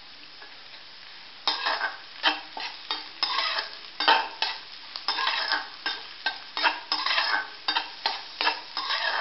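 Onions and green chillies sizzling in oil in an aluminium kadhai. From about a second and a half in, a flat metal spatula scrapes and stirs them in quick, irregular strokes, about three a second. The onions are being sautéed until they turn pink.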